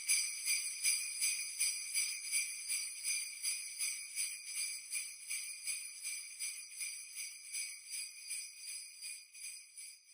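Jingle bells shaken in a steady, even rhythm, fading gradually and stopping just before the end.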